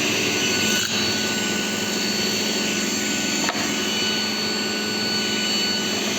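A woodworking power tool's motor running steadily, with two brief clicks, about a second in and again midway.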